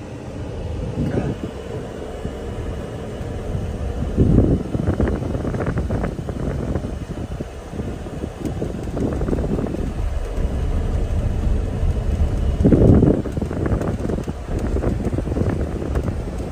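Ford F-150 heard from inside the cab, rolling slowly over a rough dirt and gravel track: a steady low rumble of tyres and jostling cab, with two louder thumps about four seconds in and again near thirteen seconds.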